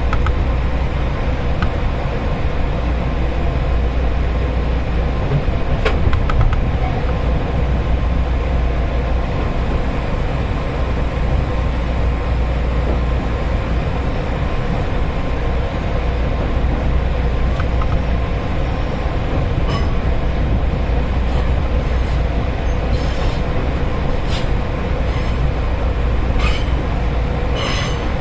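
Train running, a steady low rumble, with a few short clicks in the last third.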